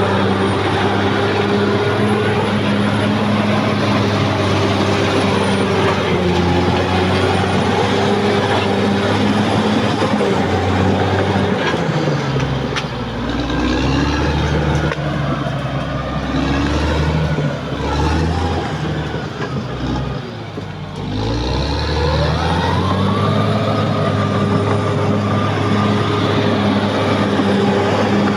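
Caterpillar D6R XL bulldozer's diesel engine running under load. About halfway through, its pitch sags and wavers for several seconds, then climbs back up to a steady run.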